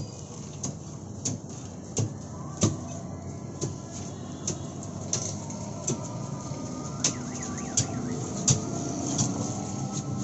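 Knife chopping and scraping ripe watermelon flesh off the rind into a plastic bucket, a sharp knock every half second to a second, over a steady low background rumble.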